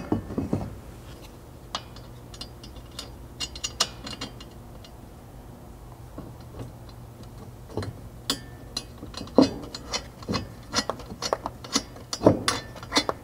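Scattered light metal clicks and clinks of a steel rock-slider mounting leg and its bolt, washer and flange nut being fitted by hand into the slot of the pinch seam bracket. The clicks come more often in the second half.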